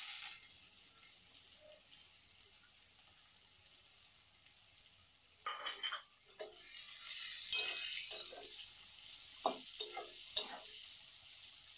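Chopped onions sizzling in hot oil in a steel kadai, a steady faint hiss. About five seconds in, the onions are stirred: irregular scrapes and knocks against the pan, and the sizzle grows louder.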